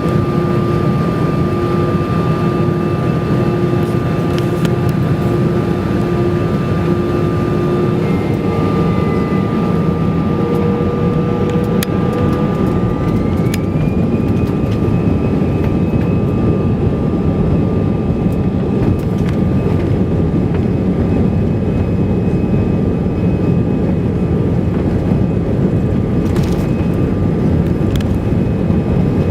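Jet aircraft engines running: a loud, steady rumble with whining tones over it. One whine rises in pitch about 12 seconds in and then holds steady.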